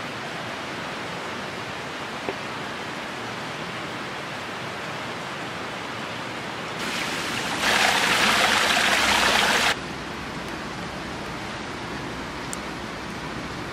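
A river running over rocks, a steady rush of water. For about three seconds in the middle a much louder, hissier rush comes in and cuts off suddenly.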